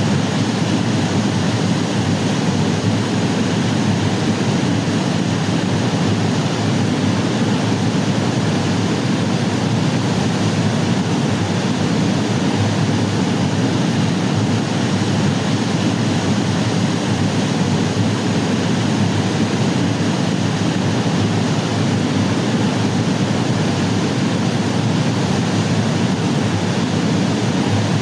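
Waterfall rushing close by: a loud, steady roar of falling water that does not change.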